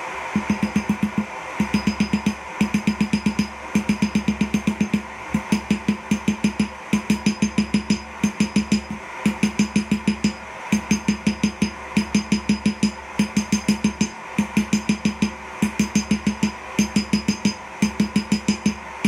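Hammer forging red-hot 3/8-inch round steel bar on an anvil: quick bursts of about five to seven ringing blows, each burst followed by a short pause. The forge runs with a steady roar underneath.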